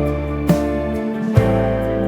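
Background pop music: guitar and sustained notes with a steady drum beat, between sung lines.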